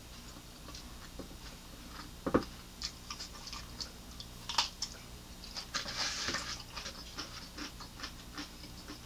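Close-miked eating: a dull knock a couple of seconds in, then a crisp bite into a raw cucumber stick about halfway through, followed by crunchy chewing and small wet mouth clicks.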